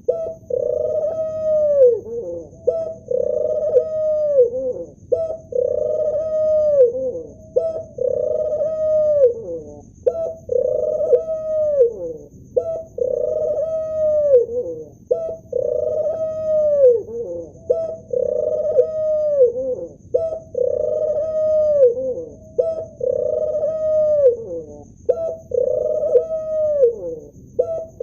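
Male ring-necked dove cooing over and over, about one coo every two seconds. Each coo is a short lead-in note followed by a long held coo that drops in pitch at the end.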